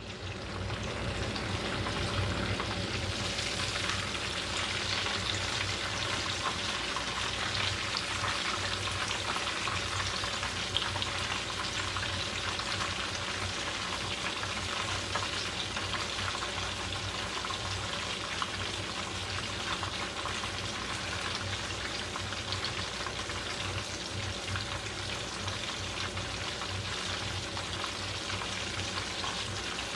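Breaded chicken cutlets frying in shallow vegetable oil: a steady crackling sizzle.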